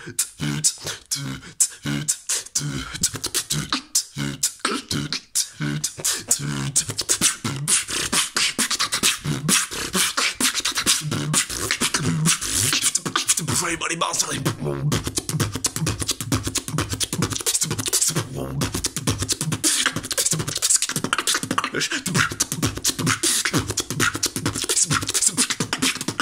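Solo human beatboxing: a fast, steady rhythm of sharp mouth-made kick and snare clicks and hissing hi-hats, laid over short pitched bass notes. The pattern is broken up with short gaps for the first few seconds, then runs on without a break.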